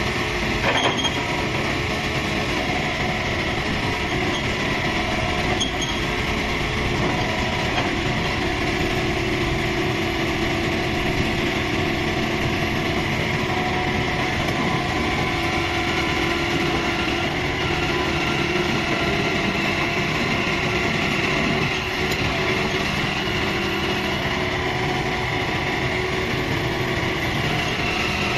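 Kobelco SK75 excavator running steadily while its boom, arm and bucket are worked, the engine note overlaid with higher tones that shift as the hydraulics move.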